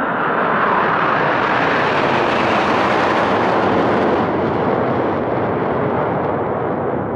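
Jet roar of six Patrouille Suisse Northrop F-5E Tiger II fighters and a SWISS Airbus airliner flying past overhead in close formation. The roar swells to its loudest and brightest two to three seconds in, then fades slowly as the formation moves away.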